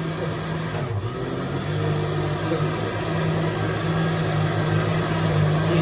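Hamilton Beach countertop blender motor running steadily, blending a thick drink in its jar, with a brief dip in its hum about a second in.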